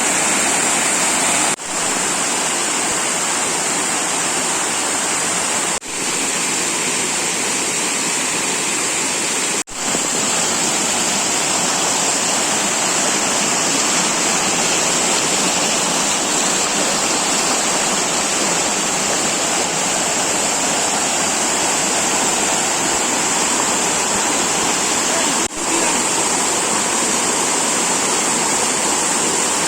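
Waterfall, a steady loud rush of falling water, briefly dipping out four times.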